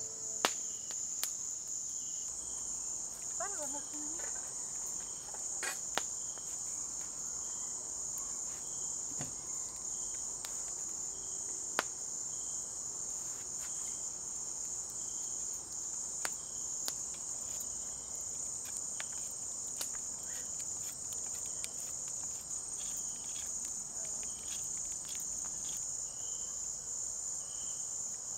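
Night chorus of crickets: a steady high trill, with a fainter chirping that pulses on and off beneath it. Occasional sharp pops and clicks come from the wood fire.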